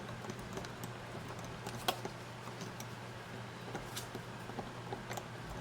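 Small scattered clicks and ticks of a cleat clamp being turned and tightened by hand on a mandolin's back. The sharpest click comes about two seconds in.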